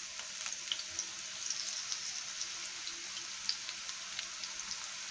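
Radish pakoda batter deep-frying in hot oil: a steady sizzle scattered with many small crackling pops.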